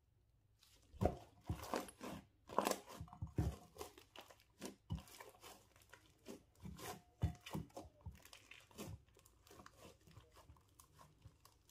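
Hands squishing, kneading and stretching thick slime mixed with foam beads, giving a dense run of irregular wet crackles, pops and squelches. It starts about a second in and thins out near the end.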